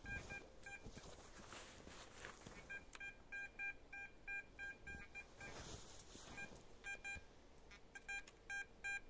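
Metal detector signalling a buried metal target: short beeps of one steady pitch, about three or four a second, in several runs with pauses between.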